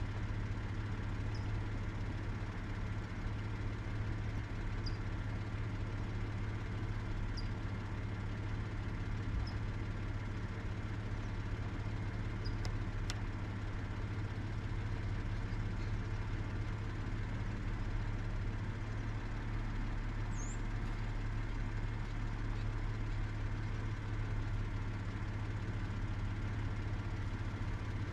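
A steady low engine hum that does not change, with a few faint short high chirps scattered through it.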